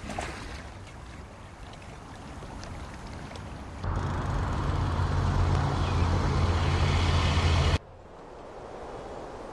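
Motor vehicle engine running with a low rumble, coming in suddenly about four seconds in and cutting off abruptly near the end, between stretches of quieter hiss.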